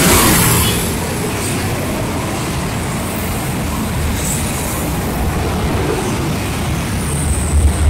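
Dense road traffic of many cars and motorcycles: a steady mixed rumble of engines and tyres, with a brief swell of heavier low rumble near the end.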